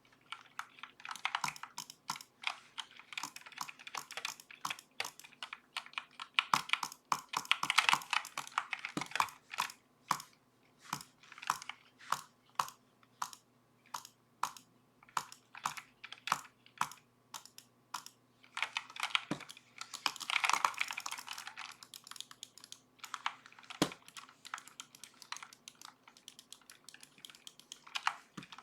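Redragon K552 mechanical keyboard being typed on, recorded through a webcam microphone. Fast flurries of keystrokes alternate with slower, single key presses.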